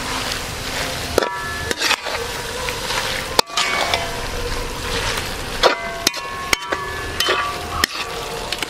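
Clam meat in masala sizzling in a metal pan while a spatula stirs it, with a steady frying hiss. The spatula scrapes and knocks against the pan several times, each knock a short metallic clank that rings briefly.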